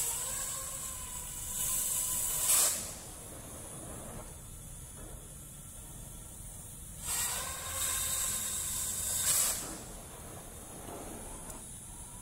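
Oxy-LPG cutting torch hissing as it cuts about 10 mm steel. The hiss swells louder twice, through the first three seconds and again from about seven to nine and a half seconds, when the cutting-oxygen jet is blowing through the metal. In between, only the softer hiss of the preheat flame is heard.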